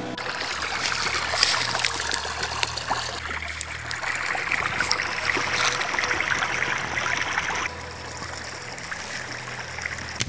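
Water running and trickling along a small ditch, steady until it becomes quieter about eight seconds in. It is the outflow from a treatment plant that is not working.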